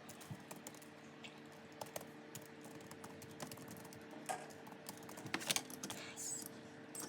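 Irregular light clicks and taps of hands handling album packaging, a few louder ones past the middle, over a faint steady hum.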